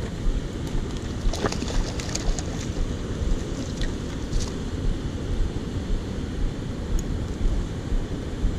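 Wind buffeting the microphone over the steady rush of fast river rapids, a constant low rumble. A few light clicks and ticks come through, mostly one to two and a half seconds in.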